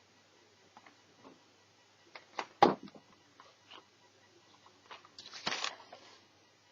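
Scattered clicks and light knocks from handling laptop parts, with a louder clatter about two and a half seconds in and a longer rattle of clicks about five seconds in.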